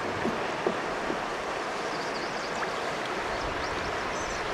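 Steady rush of river water flowing around a drifting boat, an even hiss with no pauses.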